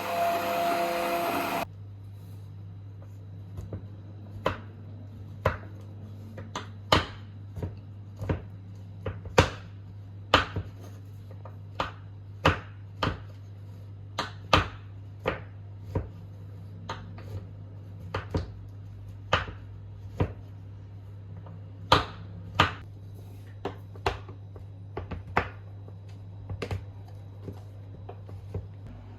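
Kitchen knife chopping on a cutting board: irregular sharp knocks, about one or two a second, over a low steady hum. Background music plays briefly at the start.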